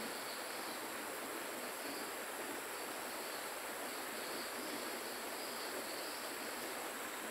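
Steady riverside ambience: an even hiss of flowing river water under a constant high-pitched insect chorus.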